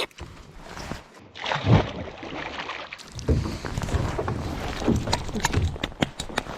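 Noises from a small boat on the water: scattered knocks and bumps over a steady noisy hiss, broken by a sudden change in the sound about a second in.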